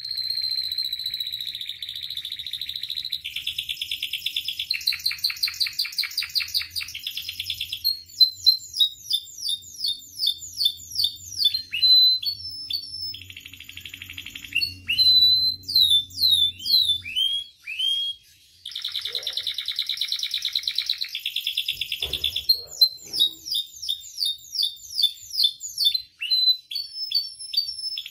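Domestic canary singing a long, varied song: sustained fast trills and rolls alternating with runs of quick, down-sweeping whistled notes, with a brief pause about two-thirds of the way through.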